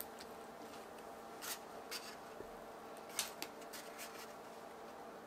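Food-prep handling sounds: a few short, soft scrapes and rustles, in two clusters about a second and a half and three seconds in, over a faint steady hum.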